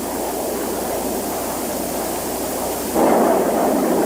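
Rocket sled ejection test run: a steady rushing roar that jumps sharply louder about three seconds in.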